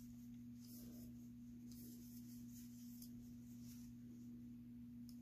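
Near silence: faint soft rustles of a crochet hook being worked through chunky cotton yarn, over a steady low hum.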